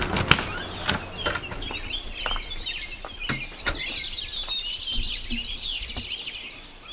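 Many birds chirping together in a dawn chorus. A door latch clicks sharply at the very start, and a few scattered footsteps or knocks sound as the walker steps outside.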